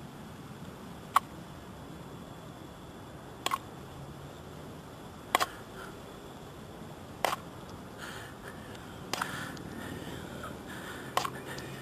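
A white plastic spoon knocks against the rim of a styrofoam cup as maggots are scooped from a deer carcass and shaken into the cup. There are six sharp clicks, about two seconds apart, some of them doubled, over a low steady outdoor hiss.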